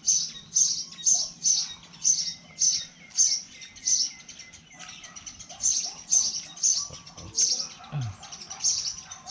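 A bird chirping over and over in short, high, evenly spaced chirps, about two a second, with a brief lull around the middle.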